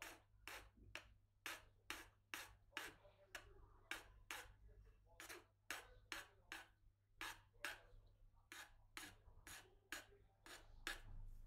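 Short scraping strokes of a hand tool on a hulusi part being shaped, about two a second with uneven spacing, faint over a low steady hum.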